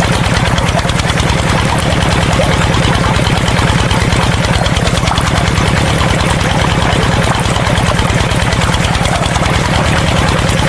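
A diesel engine running steadily with a fast, even knocking beat.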